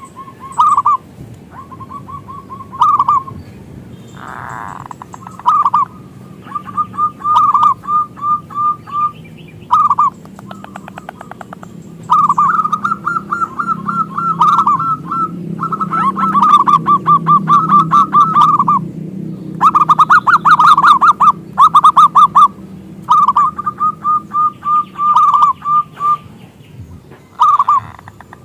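Zebra dove (local-type perkutut) cooing loudly: phrases of quick rolling coos on one pitch, repeated over and over with short pauses, some runs lasting a few seconds.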